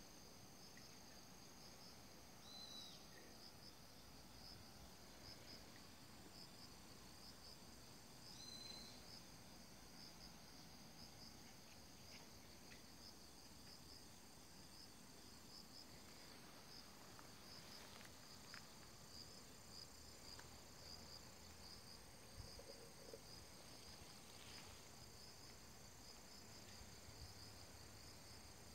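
Faint, steady chorus of autumn crickets chirping in rapid, even pulses, with two short high calls about three and nine seconds in.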